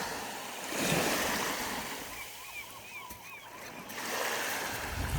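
Sea waves washing on the shore in two swells of hiss, one starting about a second in and another near the end. In between comes a run of faint, short warbling calls.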